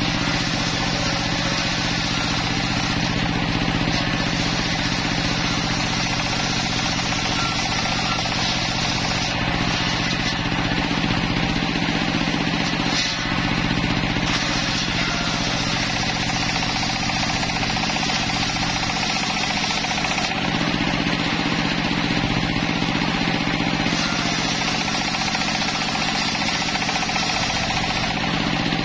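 Homemade circular sawmill running steadily, its large toothed blade driven by an engine and cutting timber fed along the table.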